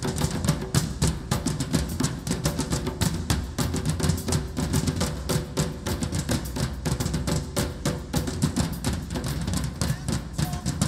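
Percussion ensemble playing a fast, dense groove on several drums at once, with drum kit among them.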